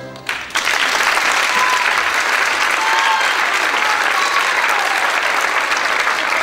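Audience applauding, breaking out about half a second in after a brief lull, dense and steady, with a few short calls from the crowd over it.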